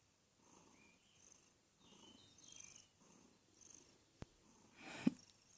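A sleeping pet snoring softly, one quiet breath roughly every second. There is a sharp click about four seconds in, and a louder breath near the end.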